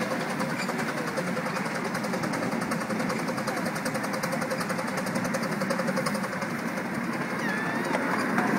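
Miniature 7¼-inch gauge steam locomotive and its passenger car running along the track, heard from the car: a steady rumble with a fast, even beat of clicks.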